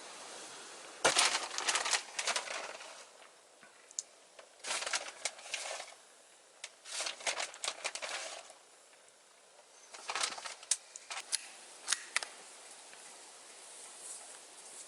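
Crackling rustle of dry brush underfoot, coming in four bursts of a second or two each with quiet between, as someone moves through the bush.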